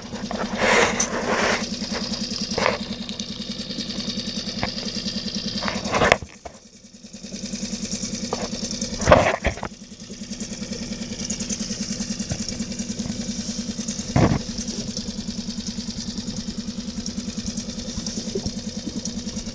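Outboard motor idling steadily with a fast, even pulse. A few short knocks and rustles from handling the fish in the landing net stand out over it, the loudest about six, nine and fourteen seconds in.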